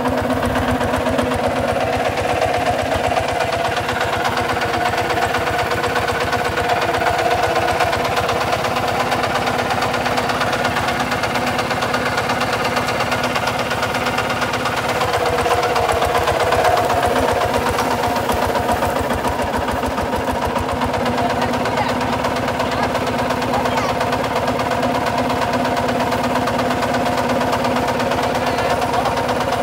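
Single-cylinder diesel engine of a Kubota RT140 DI walking tractor running steadily, its firing beats evenly spaced, swelling slightly about halfway through.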